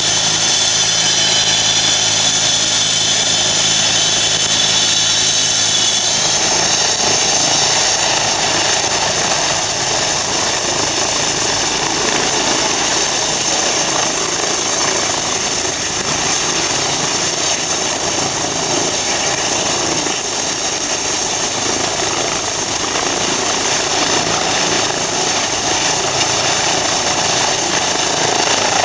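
Twin-turbine Eurocopter EC 135 helicopter running on the helipad with its rotor turning: loud, steady turbine whine over rotor noise. About six seconds in, one whine tone stops and a higher whine rises in pitch, then holds steady.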